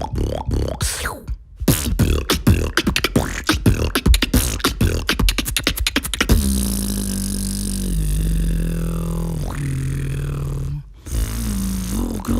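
Beatboxer's mouth and throat effects: a few quick rising swoops, then a rapid run of sharp clicks for about four seconds, then a long, low, steady bass tone that steps down in pitch about halfway through before cutting off near the end.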